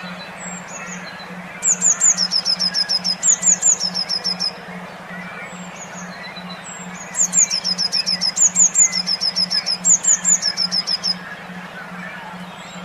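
A songbird's song in bursts of quick, high repeated notes lasting a few seconds each, twice, over a low steady hum that pulses evenly several times a second. Together they make a brainwave-style audio therapy track meant to stimulate stressed cage songbirds to sing again.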